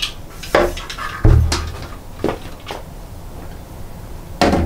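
A few separate knocks and clunks as a framed solar panel is handled and tipped onto its edge, with a heavy low thud about a second in and another knock near the end.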